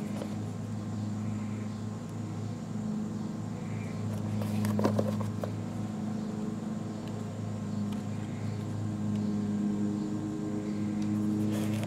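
A steady low mechanical hum, with a few brief handling clicks and rustles about five seconds in.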